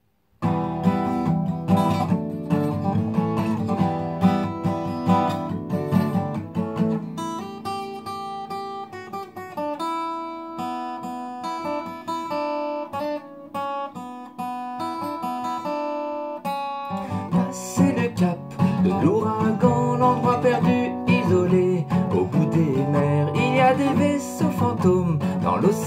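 Takamine twelve-string acoustic guitar strummed in chords from about half a second in. In the middle it eases into held, ringing chords for several seconds, then busier strumming picks up again about two-thirds of the way through.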